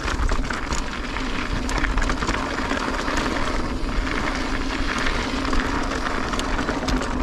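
Mountain bike rolling over rough slickrock: a steady rush of riding noise and wind on the microphone, with frequent rattling clicks from the bike.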